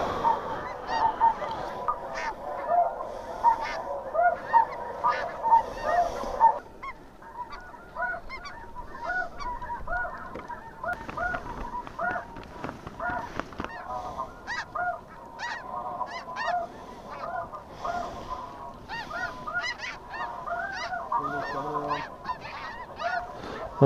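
A flock of snow geese calling: many short, high-pitched honks overlapping in a continuous chorus. The chorus drops abruptly in level about six and a half seconds in and goes on more thinly.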